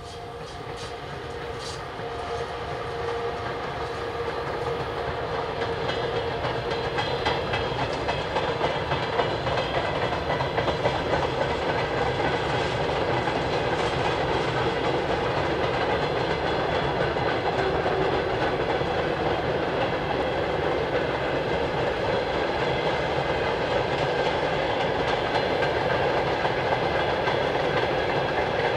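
Freight train passing, hauled by a Soviet VL-series electric locomotive, with a steady hum in the first few seconds. It is followed by a long run of open freight wagons rolling on the rails, growing louder over the first several seconds and then steady.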